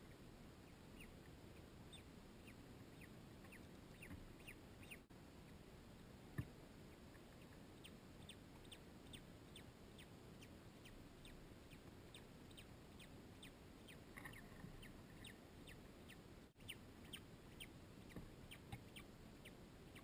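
Secretary bird chick cheeping faintly in a steady series of short high peeps, about two a second at first and quickening to about three a second around the middle. A single sharp knock about six seconds in.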